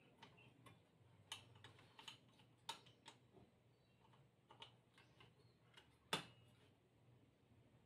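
Faint, scattered clicks and light taps of a handheld circular saw being handled and its base plate gripped and shifted, about a dozen small knocks, the loudest a little after six seconds in. The saw is not running.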